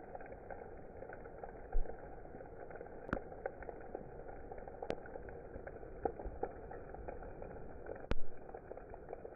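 Heavy rain and hail pelting puddled ground: a steady hiss dotted with the ticks of hailstones striking. A few louder, close knocks stand out, the loudest about two seconds in and another near the end.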